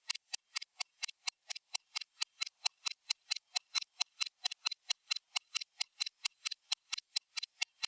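Stopwatch ticking sound effect: fast, even clock-style ticks at about five a second, each a short sharp click with no low end.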